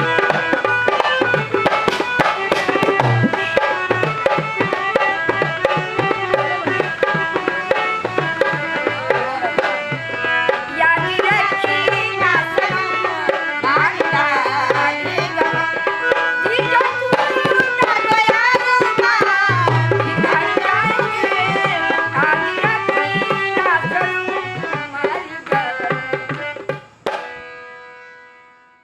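Music with a tabla beat under a bending melodic line. A held note rings out and the music fades away near the end.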